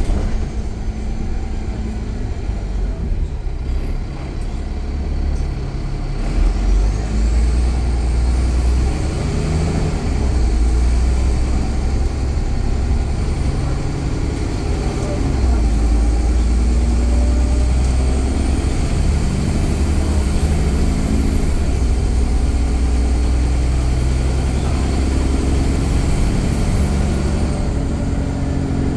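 Alexander Dennis Enviro500 double-deck bus's diesel engine running under way, its note stepping up and down every few seconds as the bus accelerates and eases off, with a high whine rising about seven seconds in.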